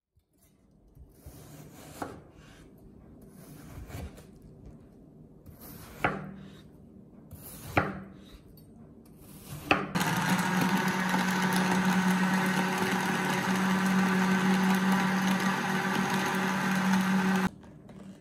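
Countertop electric blender blending watermelon into juice: first a few short knocks about two seconds apart, each followed by a brief hum, then the motor running steadily at full speed for about seven seconds before cutting off abruptly.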